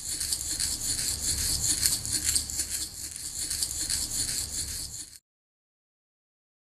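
Baking soda powder being sprinkled into a plastic tub of water: a fine, grainy rattling hiss that cuts off suddenly about five seconds in.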